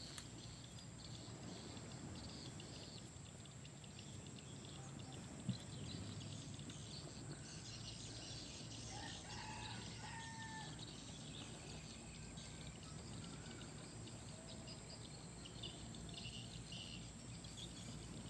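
Quiet outdoor ambience with a faint rooster crowing once, about nine to ten seconds in, over a faint high chirring of insects. A single brief knock about five and a half seconds in is the loudest moment.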